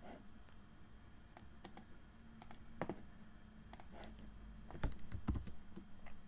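Computer keyboard keys and mouse clicks: a scattering of short, irregular clicks, with a few louder ones together about five seconds in.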